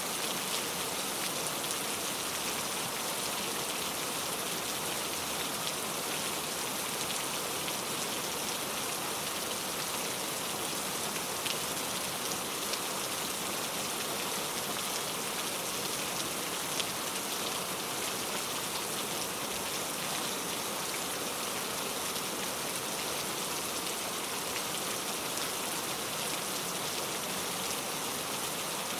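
Heavy rain falling steadily, a dense even hiss of drops hitting a surface with fine individual drop patter throughout.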